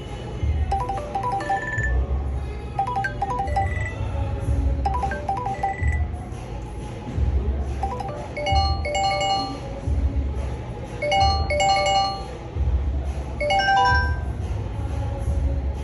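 Google Pixel 7 ringtone: a short electronic melody of bright, repeating note figures over a pulsing bass beat. About halfway through, the pattern changes to spaced chime-like chords, which may be the next ringtone starting.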